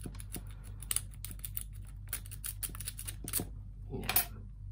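A lock pick and tension wrench working the pins of an unbranded brass padlock, making quick, irregular small metallic clicks. There is a louder click near the end.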